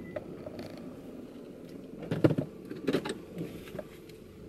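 Low hum inside a slowly moving car, with small clicks and two brief clusters of creaks and knocks, about two and three seconds in, from hands and a phone on the steering wheel and cabin trim.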